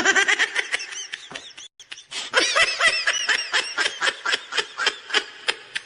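A person laughing in a long run of quick, rhythmic bursts, about five a second, with a short break about a second and a half in.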